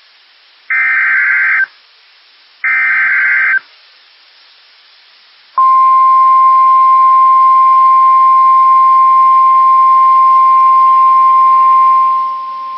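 Emergency Alert System SAME header: two buzzy one-second digital data bursts, a second apart, followed about 5.5 s in by the steady single-pitch 1050 Hz NOAA Weather Radio warning alarm tone, which drops in level near the end. Together they signal the start of a new weather warning broadcast.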